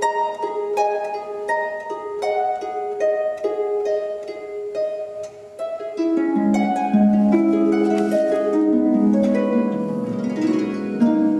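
Background music of plucked strings, picking out a gentle repeating figure of single notes. About halfway through, lower and fuller notes join in and the music grows louder.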